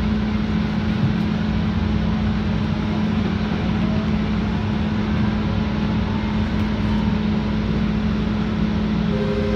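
Steady running noise inside a DART light rail car as it rolls along the track, with a constant low hum under an even rumble.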